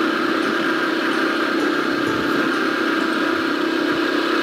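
Motorcycle engine running steadily while riding at an even speed, a constant drone with no change in pitch.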